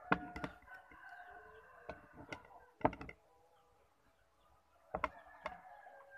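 Ceramic bowls and a plate clinking and knocking on a tabletop as dishes are set down, with about seven sharp knocks, the loudest about three seconds in. A long drawn-out animal call sounds in the background near the start and again near the end.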